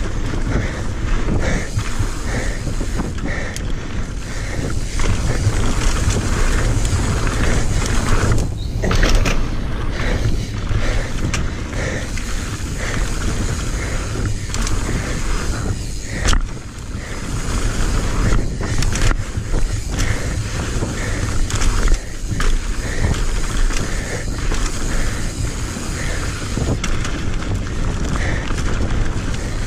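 Mountain bike riding fast down a dirt trail: wind buffeting the microphone and tyres running over loose dirt, with the bike rattling and knocking over bumps.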